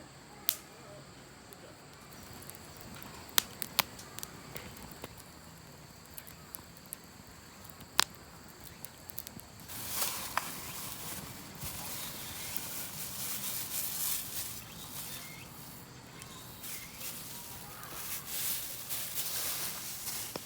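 Insects chirring in two steady high tones throughout. Over them come a few sharp clicks and knocks, and from about halfway a stretch of scratchy rustling, as of things being handled at a campsite.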